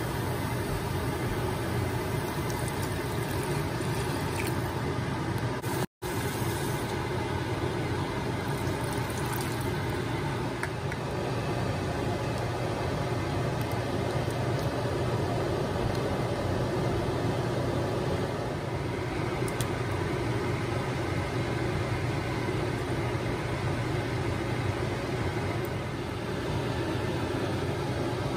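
A steady mechanical hum and whoosh at an even level, broken only by a brief cut about six seconds in.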